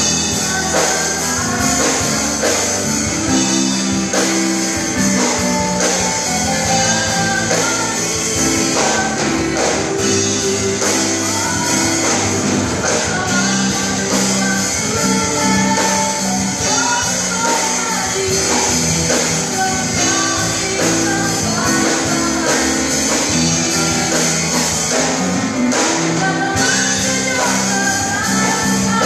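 A live band plays a Christmas praise song, with a vocalist singing over keyboard, electric bass, electric guitar and a drum kit.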